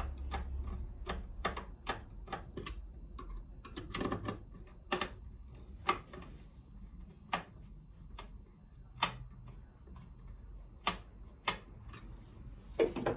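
Samil Power Solar River 3000TL grid-tie inverter clicking while it runs its grid-connection check countdown: sharp, irregular clicks, a few a second at first and sparser later, over a low hum. The clicking is taken to be its relays and to be normal.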